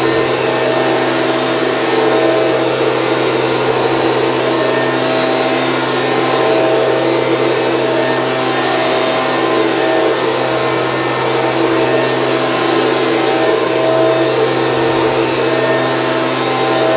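Stihl BG 86 C handheld leaf blower's two-stroke engine running steadily at a constant speed and pitch.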